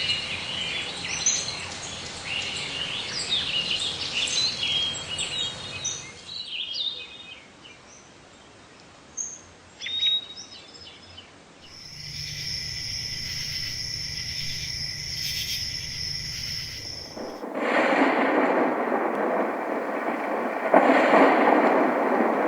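A white noise machine's nature sounds played one after another: birdsong over a soft noise bed, thinning out after about six seconds; then, about twelve seconds in, steady high-pitched tones over a low hum; then, about seventeen seconds in, a loud even rain-like hiss.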